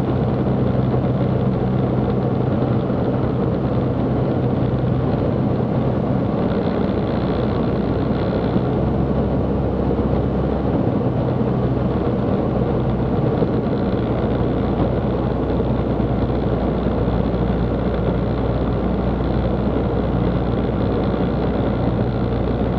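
A UL Power UL350i flat-four aircraft engine and propeller droning steadily, heard inside the cockpit of a Zenith CH 750 Cruzer, throttled back for the landing approach.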